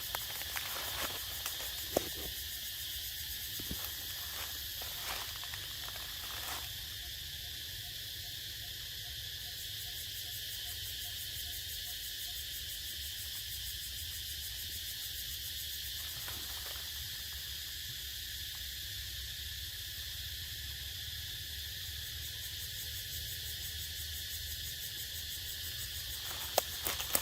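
Steady high-pitched drone of an insect chorus, with a low rumble underneath and a couple of sharp clicks, one about two seconds in and one near the end.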